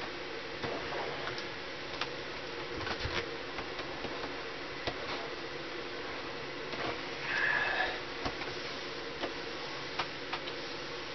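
Scattered small clicks and taps of hands pressing a self-adhesive LED light strip up against the underside of a wooden cabinet, over a steady low hum, with one short hiss a little past the middle.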